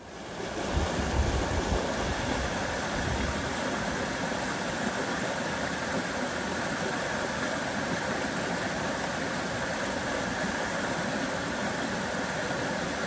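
Cross River rapids rushing steadily over and between bedrock ledges, with a low rumble in the first few seconds.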